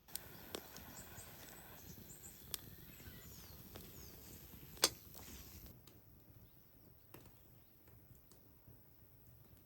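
Quiet forest ambience with faint bird chirps and a few sharp clicks or knocks, the loudest about five seconds in. The background drops away about six seconds in, leaving scattered faint clicks.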